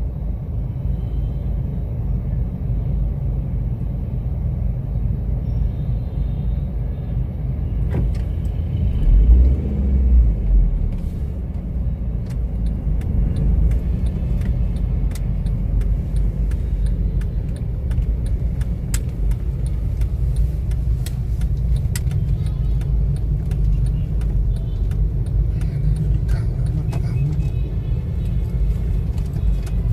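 Steady low rumble of city road traffic: cars and motorbikes idling and moving, with a louder surge of rumble about nine seconds in.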